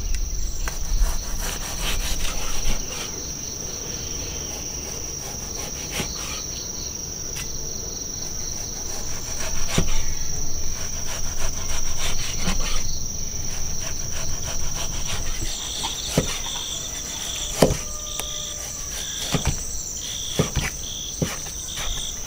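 A knife knocking on a wooden chopping board in irregular strokes as frozen beef is cut into thin slices, the strokes coming more often in the last several seconds. Over it runs a steady high-pitched insect trill.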